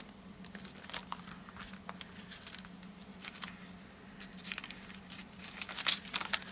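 Thin decoupage paper rustling and crinkling as a large folded sheet is opened out by hand, with scattered small crackles that grow busier near the end.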